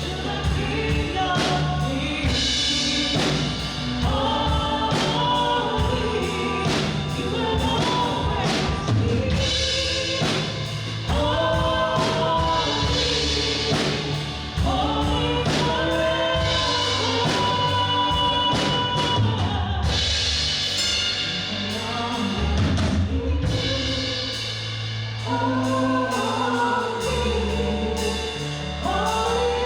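Worship band playing a gospel-style song, with a group of singers over bass and drum kit.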